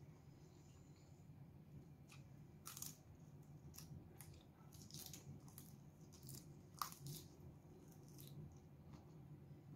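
Crunching and chewing of raw vegetables, close to the microphone: a dozen or so crisp crackles starting about two seconds in, the sharpest a little before seven seconds.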